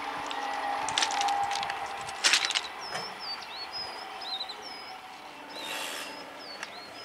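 Trackside ambience: small birds chirping in quick, rising and falling notes, with a few short rushing noise bursts, the loudest about two seconds in.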